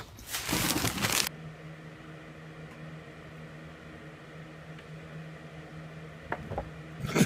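A loud rustling, scuffling noise for about the first second. Then a steady low hum, with a couple of faint taps and a short loud rustle near the end.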